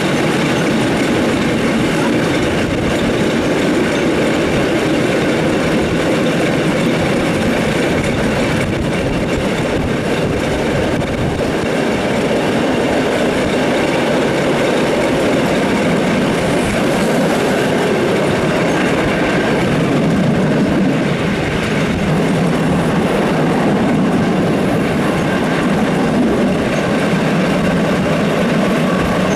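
Steam-hauled train behind class 50 locomotive 50 3673 running at speed, heard from an open carriage window: a loud, steady rolling noise of wheels on rail.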